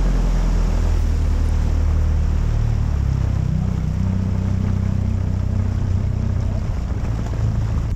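Outboard motor of a jon boat under way, a steady hum with the rush of water and wind. The engine note shifts higher about three seconds in.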